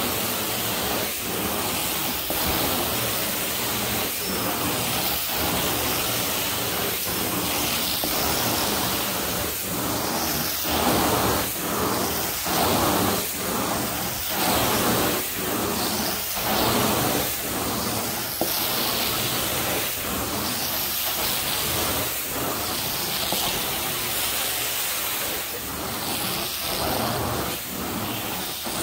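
Carpet-cleaning extraction wand hissing steadily as it sprays and sucks water from the carpet, the sound dipping and swelling in a regular rhythm of strokes.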